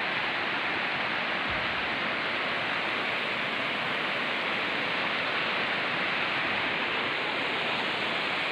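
Steady rushing of a shallow river running over rocks and riffles.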